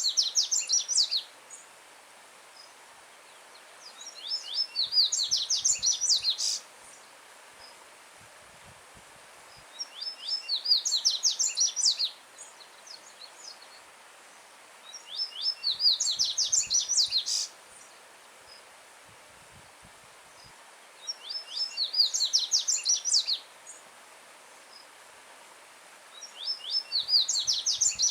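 A coleiro baiano (yellow-bellied seedeater, Sporophila nigricollis) sings its loud song: phrases of about two seconds of quick, clear, high notes, repeated about every five to six seconds. Behind it runs a stream's steady faint rush of water.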